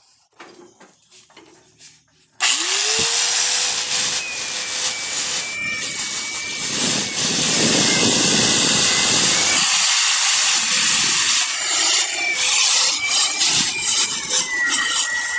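A handheld electric grinder starts about two seconds in, its whine rising fast to a steady pitch, then runs continuously grinding sheet metal, the sound shifting a little as the disc bites. A few faint clicks come before it starts.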